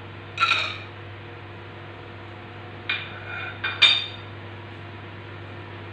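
Cashew nuts tipped from a plastic box into a black iron kadai, with short clinks against the pan: one just after the start, then two close together about three to four seconds in, the last the loudest.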